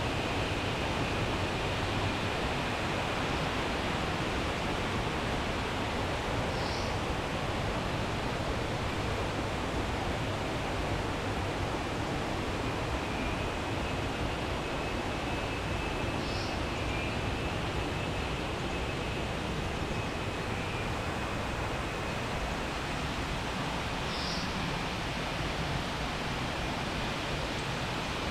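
Steady rushing of a jungle waterfall, with a thin high whine running beneath it and three short high chirps spaced about eight seconds apart.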